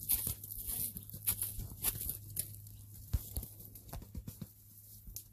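Footsteps crunching through dry leaf litter and fallen twigs, making irregular sharp crackles.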